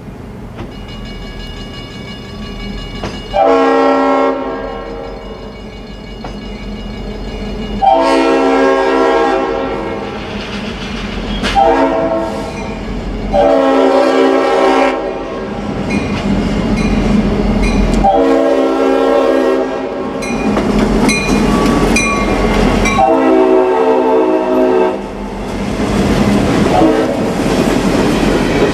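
A Norfolk Southern freight locomotive's air horn blows a series of blasts, some short and some about two seconds long, as the train approaches. The diesel rumble grows louder, and near the end boxcar wheels clack steadily over the rail joints as the cars roll past.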